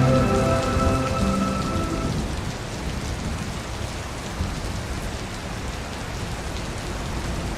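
Steady rain falling into a puddle, with soft thunder rumbling in the background. Sustained musical tones fade out over the first two seconds, leaving the rain alone.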